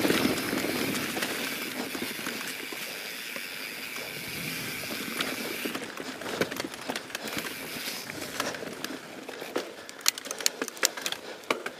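YT Jeffsy 27 full-suspension mountain bike rolling fast along dirt singletrack: a steady hiss of tyre and wind noise for the first half, then a run of sharp, irregular clicks and rattles from the bike over the rough ground.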